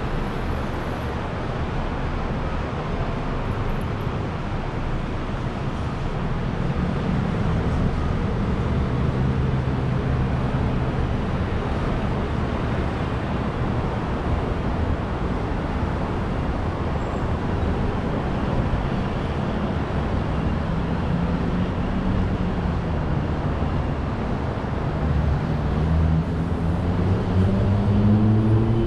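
City street traffic: a steady wash of road noise with motor vehicle engines passing. An engine swells about a third of the way in, and another accelerates with a rising pitch near the end.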